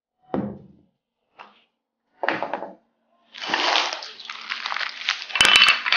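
A couple of knocks as items are set down on a wooden table, then a clear plastic bag crinkling and rustling as it is handled, with a dense crackle of fine clicks in the second half.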